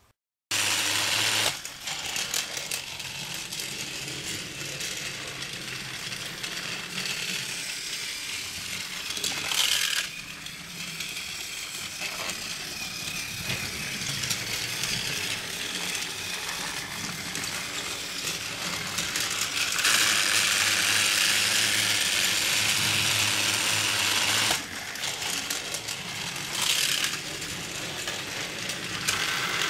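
Battery-powered Fisher-Price TrackMaster toy trains running on plastic track: a steady whir and rattle of the small geared motors and wheels. It gets louder for a few seconds in the second half.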